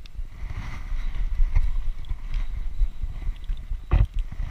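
Wind buffeting an action camera's microphone: an irregular low rumble, with a single thump about four seconds in.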